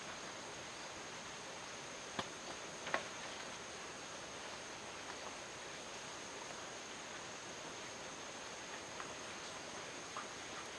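Steady high-pitched insect chorus, with two sharp wooden knocks about two and three seconds in and a couple of lighter ones near the end as heavy timber beams are moved against a wooden frame.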